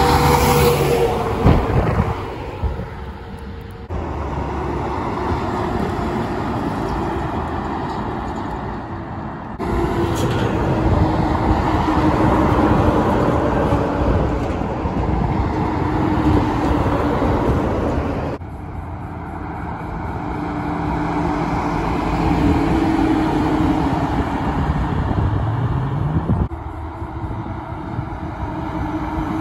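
Heavy trucks driving past on a road, their diesel engines running and tyres on the tarmac, in a string of short takes that change abruptly several times. One engine rises in pitch near the end as a truck accelerates.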